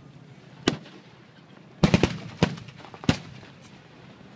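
Civil War field cannons firing blank charges in a bombardment, heard as a string of sharp booms: one about two-thirds of a second in, a quick burst of several close together near the two-second mark, then two more a little over half a second apart.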